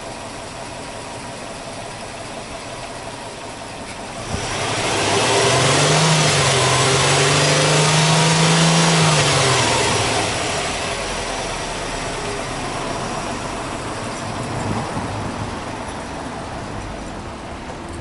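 Subaru Impreza WRX's turbocharged flat-four boxer engine idling, then revved sharply about four seconds in while stationary. It is held at high revs for about five seconds with a rising tone, then drops back to a steady idle.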